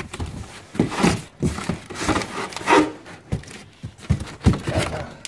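Cardboard flaps of a large wheel box being pulled open and pushed aside by hand: irregular scraping and rustling of cardboard with short knocks.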